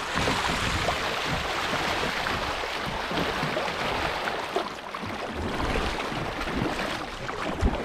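Rushing water of a shallow river riffle, with a kayak paddle dipping and splashing as it strokes through the current.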